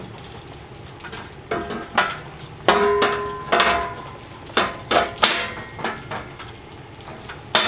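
Perforated sheet-metal grill guard panel clanking and knocking against the metal brush guard frame as it is worked into place. There are about half a dozen separate knocks, and one near the middle rings briefly.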